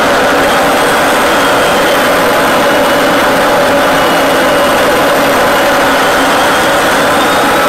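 Steady jet engine and airflow noise inside an F-16 fighter's cockpit in cruising flight, with faint high whines drifting slowly in pitch.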